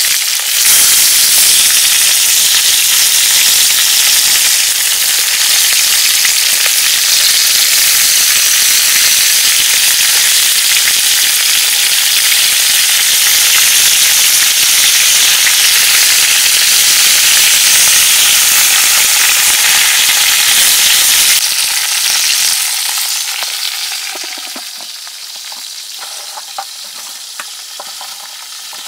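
Whole chicken and vegetables sizzling in hot fat in a large aluminium pot: a loud, steady hiss. About 22 seconds in it drops away to a quieter hiss with a few faint crackles.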